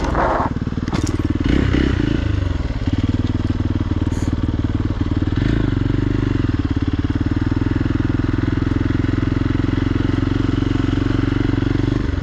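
Hero XPulse's single-cylinder engine running, its pitch shifting over the first couple of seconds with a few knocks, then holding at steady revs.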